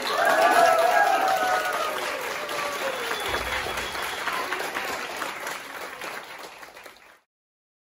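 Applause from a small audience with a voice cheering near the start, fading away and cutting off just after seven seconds in.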